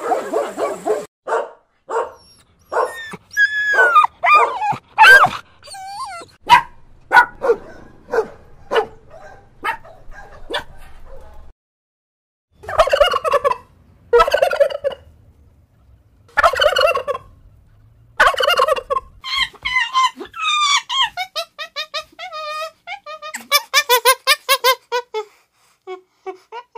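Bird calls: a long series of short calls and quick rattling runs, broken by brief pauses.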